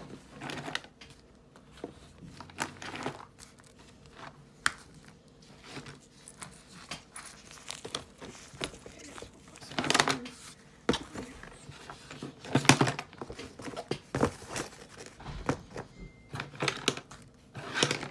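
Fabric and vinyl zippered makeup bags rustling and crinkling as they are pushed and rearranged in a plastic drawer, with a few light knocks. The louder rustles come about ten and thirteen seconds in.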